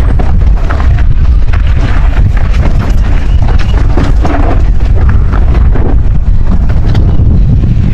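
Strong wind buffeting the microphone: a loud, steady low rumble that masks everything else.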